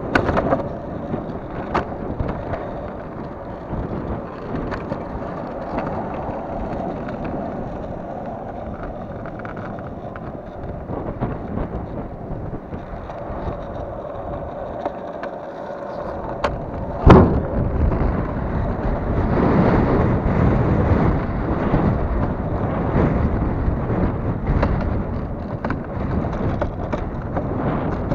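Longboard wheels rolling over asphalt with wind buffeting the microphone. A single sharp knock comes a little past halfway, and the rolling and wind noise grow louder after it.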